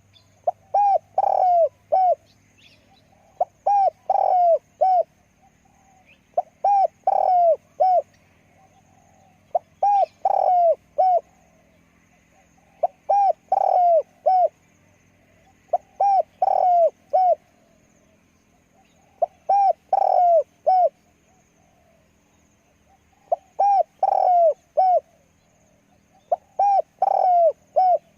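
Spotted dove cooing: loud phrases of several low coos, repeated about every three seconds, nine times.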